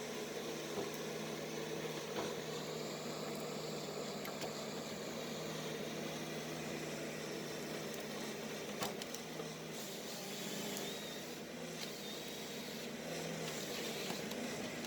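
Ponsse ERGO harvester's diesel engine running steadily, with a few faint clicks and knocks.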